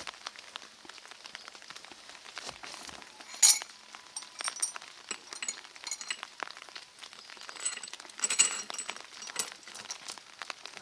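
Steel chain and weight plates clinking and rattling as the counterweight is handled, with many small clicks and two sharper ringing metallic clanks, about three and a half and eight seconds in.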